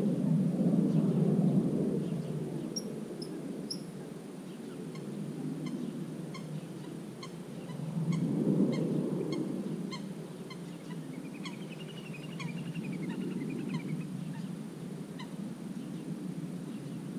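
Wetland animals calling: low, rough, honking calls swell twice, loudest at the start and again about eight seconds in. Over them a small bird ticks about twice a second for most of the stretch, with a short chirping warble near the end.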